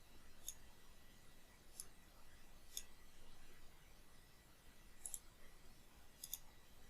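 Faint computer mouse clicks: a few single clicks, then two quick double clicks near the end.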